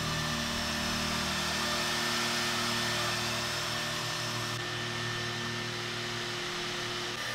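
Woodworking machine running steadily, a continuous whir with a low hum, as a wood blank passes beneath its brush guard. The higher part of the noise drops away about halfway through.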